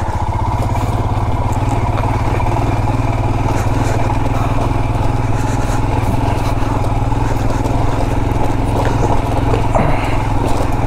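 Hero Xpulse 200's single-cylinder engine running under a steady throttle as the motorcycle is ridden over a rough dirt track. The engine note holds an even pitch, with a few light knocks near the end.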